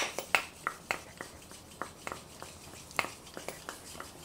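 Ratchet wrench clicking unevenly, about three to four sharp metallic clicks a second, as it turns a pivot bolt on a mountain bike's rear-shock linkage.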